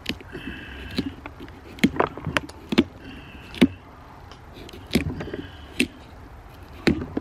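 Kitchen knife cutting through a pumpkin's rind and flesh while carving a jack-o'-lantern face, giving irregular sharp cracks and clicks as the blade is pushed and worked through.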